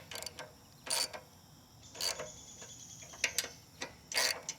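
Socket ratchet clicking in short strokes, about one a second, as the ignition coil's mounting bolts are tightened down.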